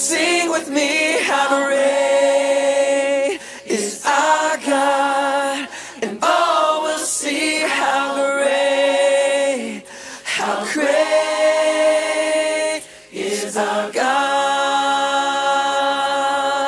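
Background music of a cappella singing, sung in phrases of long held notes with short breaks between them.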